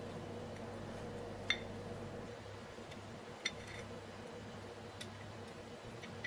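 Light metallic clicks and clinks from a painted telephone bell gong being handled and its centre fitting turned by hand: two sharp ones about two seconds apart, then a fainter one, each with a brief bright ring, over a faint steady hum.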